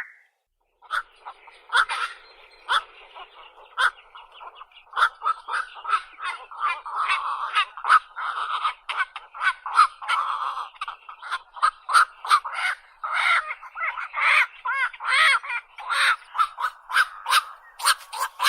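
Heron-family bird calls (bittern or night heron): a rapid, continuous string of short calls, some overlapping, with sharp clicks among them, starting about a second in.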